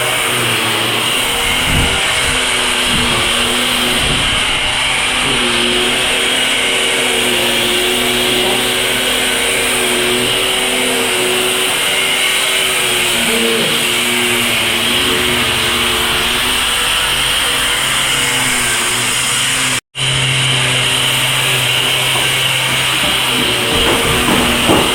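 An electric power tool's motor running steadily under load, cutting out for an instant about twenty seconds in.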